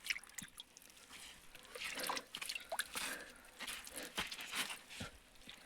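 Water dripping and splashing lightly in scattered small drops, with a few faint ticks.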